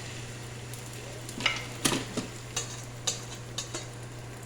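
A cooking utensil knocks and scrapes against a pan as food is stirred, with several sharp clinks in the middle seconds. A steady low hum runs underneath.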